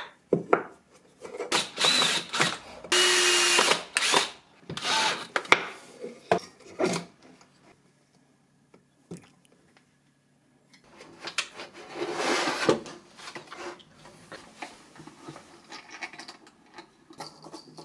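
Cordless drill running in several short bursts while the wooden motor mount is made, with a brief steady whine a few seconds in. The drilling stops for a few seconds in the middle, then resumes, and handling knocks follow near the end.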